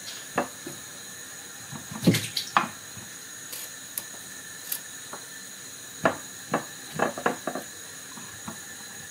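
Cucumbers being handled and pressed into a small jar: a string of short, irregular knocks and squeaks, the loudest about two seconds in, over a faint steady hiss.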